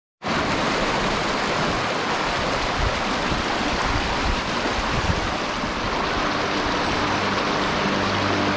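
Fast mountain creek rushing over rocks: a steady, unbroken rush of water.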